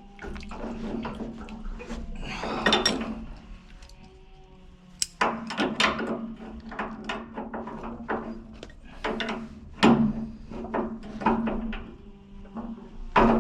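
Irregular metal clanks and knocks of grips and fittings being worked on radiator valve pipework, over a steady low hum.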